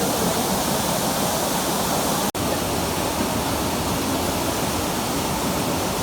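Waterfall rushing: a steady, even wash of falling water. The sound cuts out for an instant about two seconds in.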